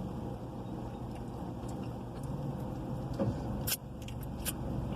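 Steady low hum inside a car cabin, with a few short clicks, the sharpest about three and a half seconds in.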